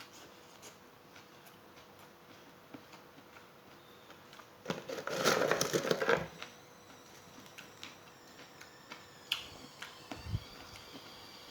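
Person eating a meal: faint mouth and utensil clicks, with a loud crunching burst lasting over a second about five seconds in, and a few sharper clicks near the end.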